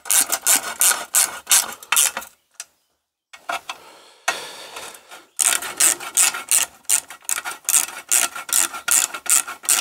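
Hand ratchet wrench clicking in quick, even strokes, about four a second, as bolts are run down on a small engine's cover. The strokes stop for about two seconds a couple of seconds in, then start again.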